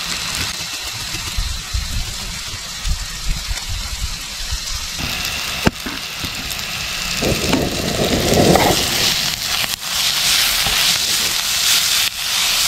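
Ginger and garlic sizzling in hot oil in a pan on a gas stove, the sizzle growing louder and hissier in the second half over a low rumble. A sharp click comes a little before halfway.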